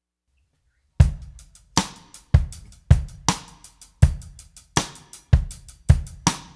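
Background music: about a second of silence, then a drum-kit groove of bass drum, snare, hi-hat and cymbal hits in a steady beat.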